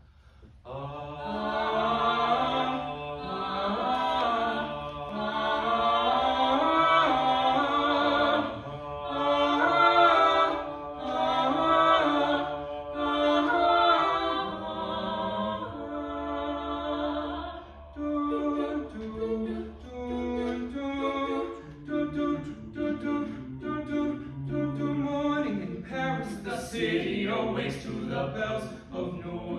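A four-voice a cappella vocal ensemble singing in close harmony: long held chords for about the first half, then shorter, detached notes that are somewhat quieter.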